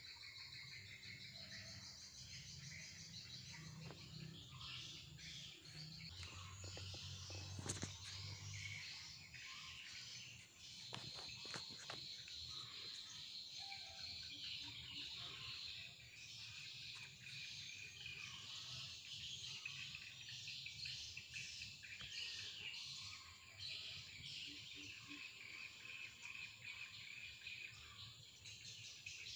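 Small birds chirping continuously over a steady insect drone, with a few sharp clicks about eight and eleven seconds in.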